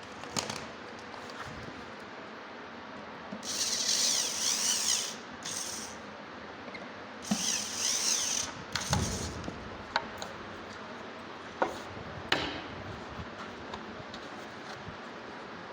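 Electric screwdriver driving screws into the wooden rack panels in two runs of about two seconds each, with a few sharp knocks of handling the wooden parts in between.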